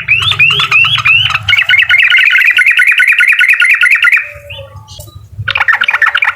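Sooty-headed bulbul (trucukan) singing an 'uklik' song: four quick rising notes, then a long fast trill of repeated notes. After a short pause, another fast trill starts about five and a half seconds in.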